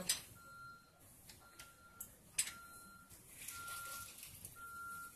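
Metal hand-held lime squeezer being handled and pressed over a small container: a few sharp clicks and knocks, then a soft squeezing hiss. Behind it, a faint short beep at one steady pitch repeats about once a second.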